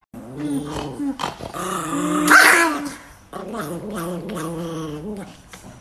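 Chihuahua growling in three long, steady growls, with a louder bark in the middle one about two and a half seconds in.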